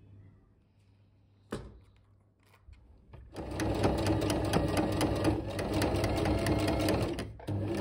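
Domestic electric sewing machine stitching felt onto a fabric page: it starts about three seconds in with a fast, even run of stitches, stops briefly near the end and starts again. A single click comes before it, about one and a half seconds in.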